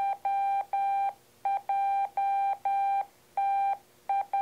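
Morse code from a ham radio fox transmitter, heard through a handheld receiver's speaker: one steady beep keyed on and off in long and short elements as it sends the operator's call sign at the end of its transmission, stopping near the end.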